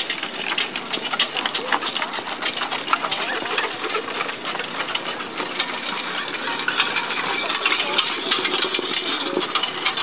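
Horse-drawn wagon pulled by a Haflinger at a walk: a steady clattering rattle of the wagon and harness, growing louder as it passes close about eight seconds in.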